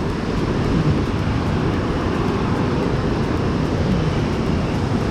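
Steady noise of ocean surf breaking on rocks, mixed with wind rumbling on the microphone.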